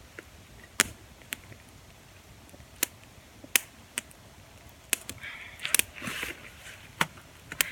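Wood campfire crackling: about a dozen sharp pops at irregular intervals over a faint background, with a soft rustle a little after the middle.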